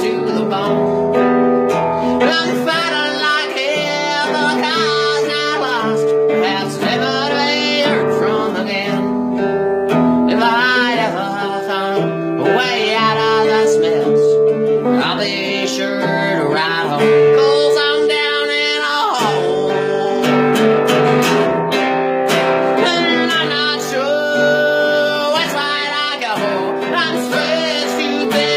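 A song played on acoustic guitar with a singing voice, performed live.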